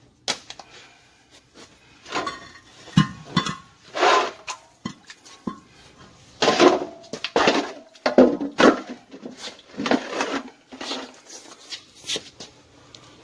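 Metal parts and tools clanking and rattling as they are handled and set down: a dozen or so irregular knocks and clatters, some with a short metallic ring.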